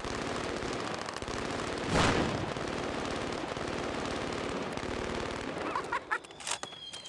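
Several automatic rifles and submachine guns firing full-auto at once: a continuous rattle of overlapping shots, with one louder report about two seconds in. The firing thins out and stops near the end.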